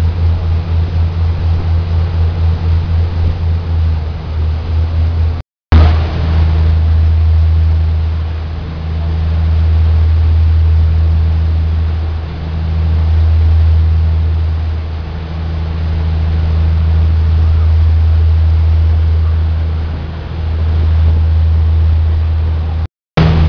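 A fast passenger ferry's engines drone steadily at cruising speed, with a deep hum and a noisy wash of wind and water over it. For the first few seconds the drone pulses rapidly. After that it swells and fades slowly every few seconds, and it cuts out briefly twice.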